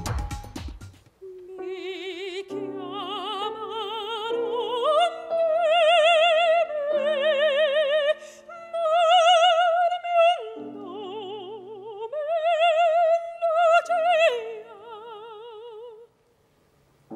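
A soprano singing an operatic line in long notes with wide vibrato, accompanied by piano. It opens with the last second of a drum-backed track fading out, and the singing breaks off about a second before the end.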